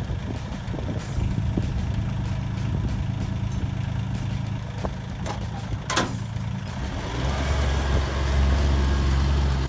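An engine runs steadily, growing deeper and louder from about seven seconds in, with a brief high squeal near six seconds. The sound cuts off abruptly at the end.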